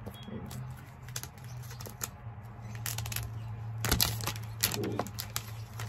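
Plastic shrink-wrap being peeled off an iPhone box by hand: irregular crinkling and crackling, busiest in the second half.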